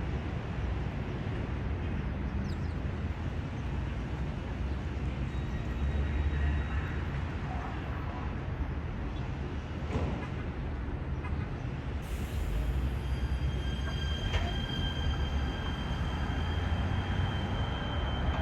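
Steady low rumble of a moving vehicle. A thin, steady high-pitched squeal sets in about two-thirds of the way through.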